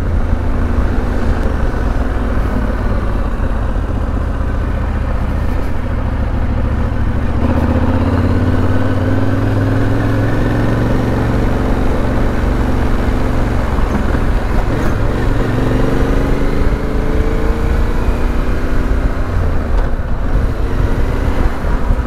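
Parallel-twin adventure motorcycle running under way, with heavy wind noise on the microphone. The engine note rises as the bike accelerates about a third of the way in, and again a little past the middle.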